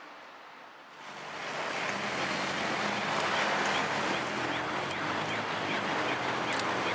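City street traffic: a steady rush of passing cars and their engines, swelling about a second in and holding.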